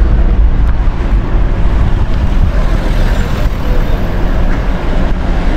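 Motor vehicle noise: a steady low rumble with no clear events.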